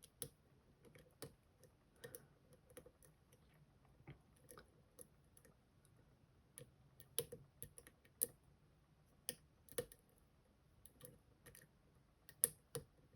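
Faint, irregular small metallic clicks and ticks of a lock pick working the spring-loaded sidebar sliders of an M&C Color+ dimple lock, the sliders binding as they are pushed.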